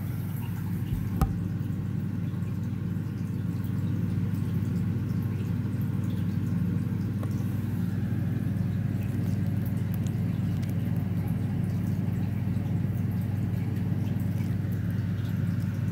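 A steady low hum, with a single sharp click about a second in.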